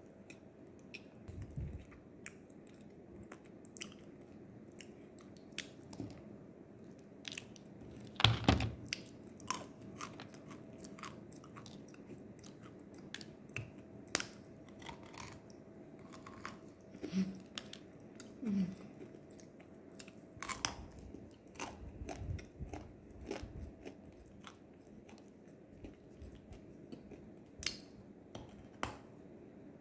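A person biting and chewing a lump of edible clay (nzu): crisp crunches and clicks at an uneven pace, the loudest bite about eight seconds in.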